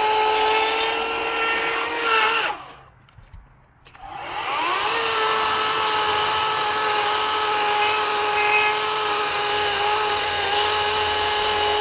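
EGO 18-inch 56-volt battery chainsaw cutting through a log, its electric motor and chain giving a steady whine. About two and a half seconds in it cuts off, and after a short pause it spins back up with a rising whine and runs steadily again.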